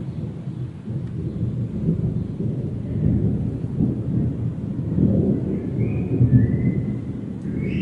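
A continuous low rolling rumble like distant thunder, swelling and easing without a break: the unexplained 'strange thunder noise'. Faint short high tones come in over it after the middle.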